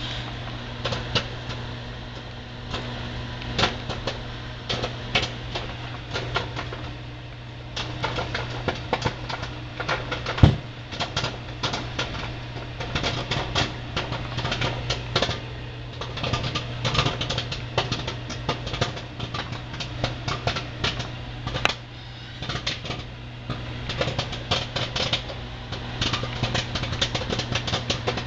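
Microwave oven running with a steady hum while a bag of microwave popcorn pops inside; the irregular pops are sparse at first, then come thick and fast from about eight seconds in, with one louder pop around ten seconds in.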